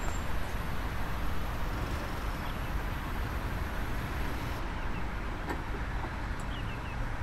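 Steady outdoor background noise with a low rumble, like road traffic or a running car, and a faint click about five and a half seconds in.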